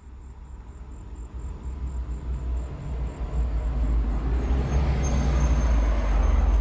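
Mitsubishi Lancer Evolution X running, with a low engine rumble and noise that grow steadily louder, as the car is put into first gear through the new short shifter.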